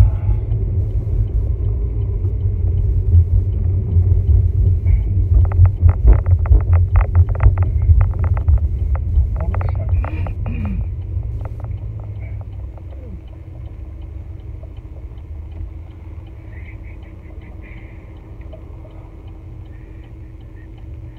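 Low rumble of tyre and road noise inside a moving car, with a run of quick knocks about five to eight seconds in. The rumble dies away as the car slows to a stop at a red light, leaving a quieter steady hum from the idling car.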